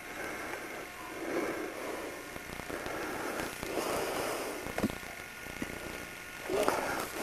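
Rustling and scraping of someone moving through dry brush and forest litter, in several swells, with a few soft knocks about five seconds in and near the end.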